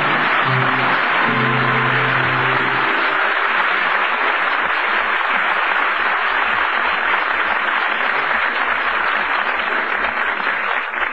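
Studio audience applauding in an old radio broadcast recording. A few sustained chords of music play along with the applause for about the first three seconds, then the applause carries on alone.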